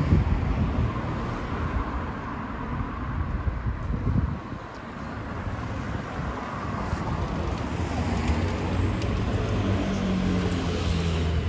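Road traffic on a busy street: cars driving past with a steady low rumble of engines and tyres. A vehicle's engine hum grows louder in the last few seconds.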